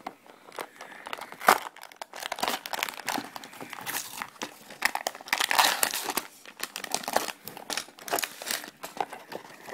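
Hands tearing open a cardboard LEGO set box, then handling the plastic bags of bricks inside: a run of irregular crackles, rustles and crinkling.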